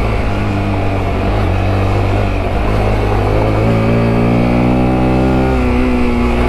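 Sinnis Terrain T125's single-cylinder 125 cc engine running under load off road, its pitch ragged at first as the throttle comes on and off, then steadying and climbing slowly, with a couple of drops in pitch near the end as gears change.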